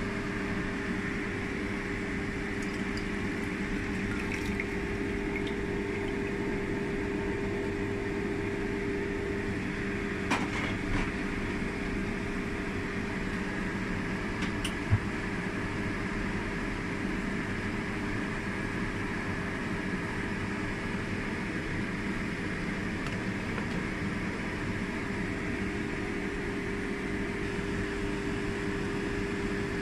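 Covered pot of fish soup simmering on the stove, heard as a steady hiss with a low hum under it. A few light clicks about ten and fifteen seconds in.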